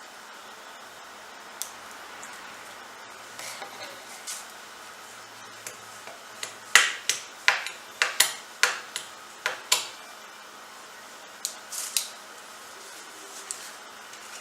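Hard objects being handled on a workbench: scattered sharp clinks and knocks, with a quick run of about eight louder ones a little before halfway through. These are the sounds of setting out containers and tools to mix silicone.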